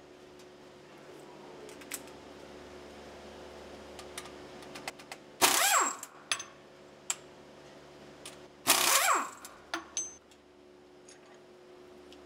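Pneumatic wrench on an air hose run in two short bursts on the bolts of a sawmill cutter head, its pitch sweeping down and back up each time, with light metallic clicks of tools and parts between the bursts. A steady low machine hum runs underneath.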